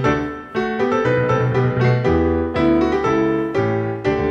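Background music led by piano, a gentle melody over chords that change about every half second.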